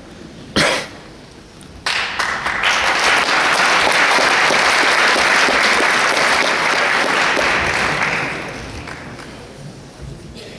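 Concert audience applauding. The applause starts sharply about two seconds in, holds steady, then dies away near the end. Just before it there is a brief loud noise.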